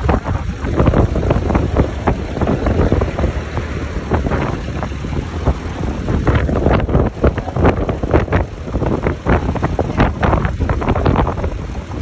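Wind buffeting the microphone over the steady running of a small vintage farm tractor's engine.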